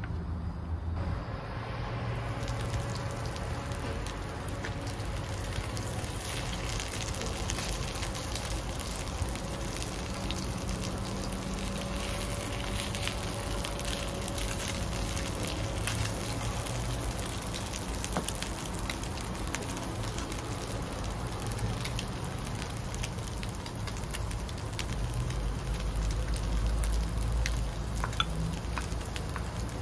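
Koofte meatballs frying in oil in a pan: a steady sizzle with crackles, with the occasional scrape and tap of a wooden spatula turning them. The sizzle grows a little louder for a few seconds near the end.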